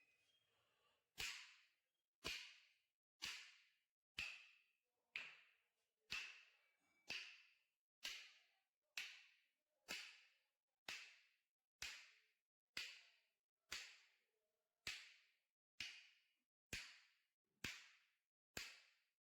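A faint, sharp swishing strike repeated at a steady pace of about one a second, each fading out over about half a second.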